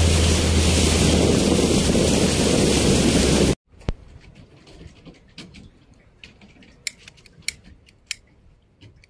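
A boat under way: loud wind and water rush with a steady low engine hum. It cuts off abruptly a little over a third through, giving way to quiet, scattered sharp clicks and clinks of ice among the freshly caught fish.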